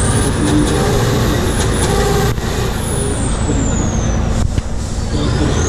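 Tatra 813 8x8 truck's diesel engine labouring hard at high revs as the truck climbs a steep dirt slope under heavy load, with a high whine that rises, falls away after about three seconds and climbs again near the end.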